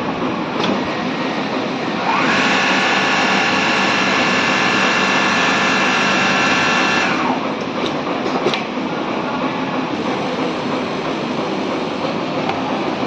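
Richpeace computerized template sewing machine running, a fast, steady mechanical clatter. About two seconds in, a whine rises in over it, holds steady for about five seconds, then drops away, with a few sharp clicks after.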